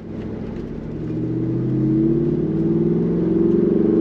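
Jeep Wrangler Rubicon 392's 6.4-litre V8 accelerating, its note rising steadily in pitch and growing louder from about a second in.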